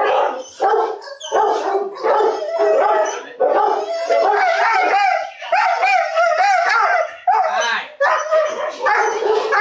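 A Rottweiler whining and howling in wavering cries that rise and fall in pitch, typical of a dog held in a mating tie.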